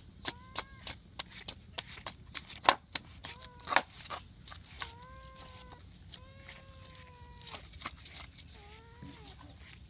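A run of sharp knocks and clicks, quick at first and sparser later, with several short calls from chickens in between.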